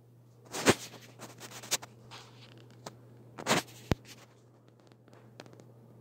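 Hunter Passport III ceiling fan running with a steady low motor hum. A few loud rustling scrapes come about half a second in and again around three and a half seconds, followed by a single sharp click just before four seconds.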